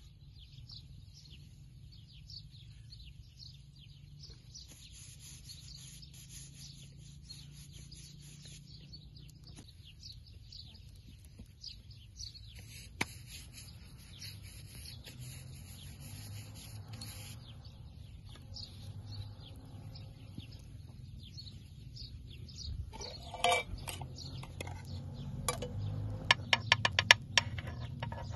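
Small birds chirping in the background, over a steady low rumble. Near the end comes a quick run of sharp clicks and taps, the loudest sounds here.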